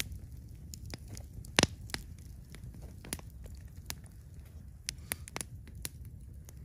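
Campfire of burning coals and logs crackling, with irregular sharp pops and one loud pop about one and a half seconds in, over a low steady rumble.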